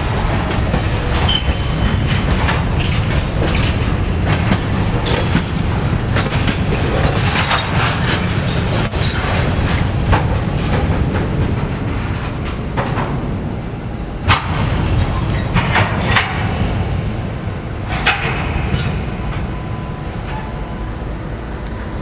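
CSX EMD GP40-2 and GP38-2 diesel locomotives rolling slowly past close by with a boxcar: a loud, steady diesel rumble under repeated clicks and clanks of wheels over rail joints, with a faint thin wheel squeal. The heaviest clanks come about 14 and 18 seconds in.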